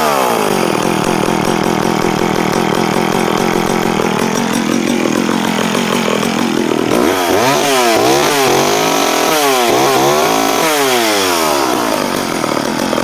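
Vintage Danarm Frontier chainsaw engine, with electronic ignition, running at high revs. It dips briefly about five seconds in, is blipped up and down several times in quick succession from about seven seconds, then holds high again.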